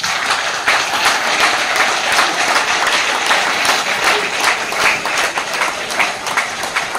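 Crowd applauding: many hands clapping densely and steadily.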